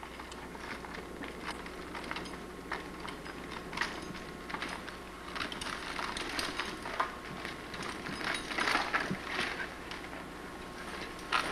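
Early mountain bikes coming down a rocky trail: irregular clicks, rattles and crunches of tyres and frames over rocks, growing louder and busier near the end as the riders close in. A faint steady low hum runs underneath.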